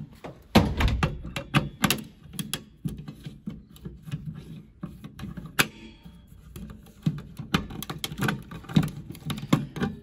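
Screwdriver turning in the reset screw of a Siemens fire alarm pull station, which has to be screwed rather than given one turn to reset. Irregular clicks and knocks of the tool and the station's parts, with handling noise.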